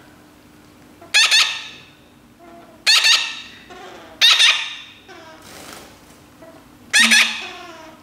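Baby parrot chick giving loud, harsh, rasping begging squawks while being hand-fed soft food: four calls, each fading quickly, with fainter calls between them.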